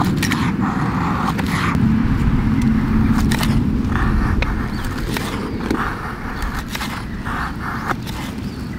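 A knife blade shaving thin curls off a pale wooden stick to make a feather stick: several short scraping strokes at uneven intervals, over a steady low rumble.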